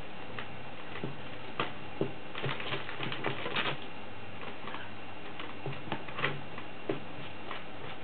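Congo African grey parrot rummaging with its beak through shredded paper and toys: irregular clicks and crinkles, with a busier run of them a little before the middle.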